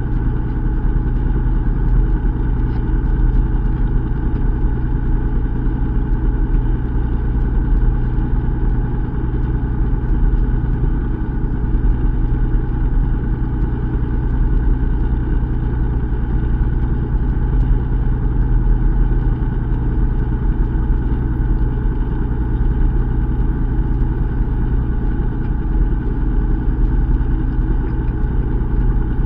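Fishing boat engine running steadily with a slow, low hum, its level and pitch unchanging.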